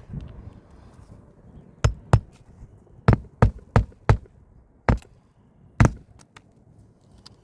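Hammer driving roofing nails into asphalt shingles: eight sharp strikes in uneven groups, two, then four in quick succession, then two single blows.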